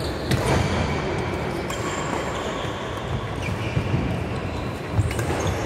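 Badminton play in a large indoor hall: a few sharp racket strikes on the shuttlecock and short high squeaks of shoes on the wooden court, over a steady din of the hall with other games going on.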